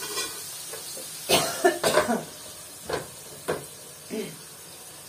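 A woman coughing, about six short coughs in quick fits from a tickle in her throat.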